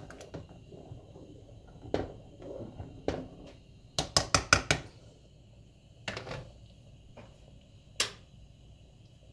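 A spoon stirring thick cornmeal porridge in a pot and knocking against the pot. There are single knocks about two and three seconds in, a quick run of five knocks about four seconds in, and a last sharp knock about eight seconds in.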